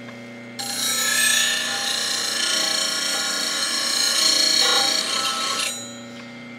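A steel spindle gouge ground on a bench grinder's CBN wheel: about half a second in, the tool is pressed to the spinning wheel and gives a steady hissing rasp for about five seconds, then is lifted off, leaving a steady low hum. Each pass is meant to even out a tapering flat along the gouge.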